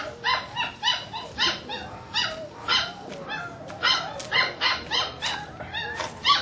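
A dog yelping and whining over and over, short high-pitched calls at about three a second.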